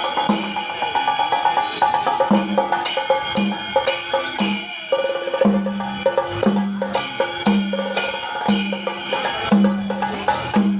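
Percussion-led music: drums and other struck instruments in a dense steady rhythm, with ringing high overtones and a low note that recurs about once a second.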